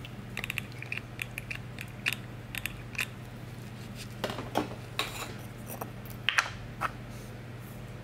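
Light clicks and clinks of plastic acrylic powder jars and a glass dappen dish being handled and set down on a tabletop, with a run of quick small clicks as a jar lid is twisted off.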